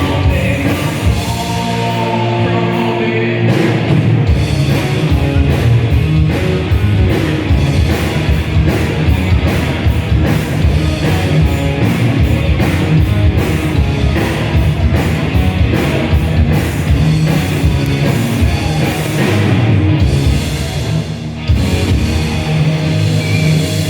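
Heavy metal band playing live at full volume: distorted guitars over fast, dense drumming, with a short drop in the playing about three-quarters of the way through before the band comes back in.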